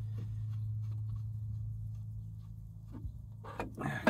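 Small clicks and taps of hands handling parts inside an open aluminium line-extender amplifier housing, over a steady low hum. Near the end there is a louder clatter as the metal housing is shifted.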